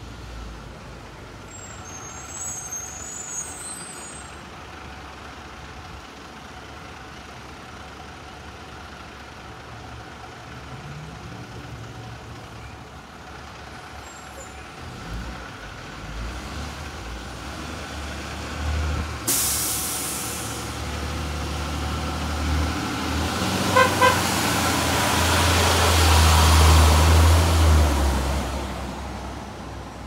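2003 Blue Bird International 3800 school bus approaching with its diesel engine running, growing louder as it nears. About two-thirds of the way through there is a sudden hiss of air from the air brakes, lasting about a second. A few seconds later the horn gives two short toots, and the engine is loudest just after as the bus drives past.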